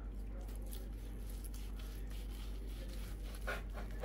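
Indoor room sound: a steady low hum with faint scattered clicks, and a few light knocks about three and a half seconds in.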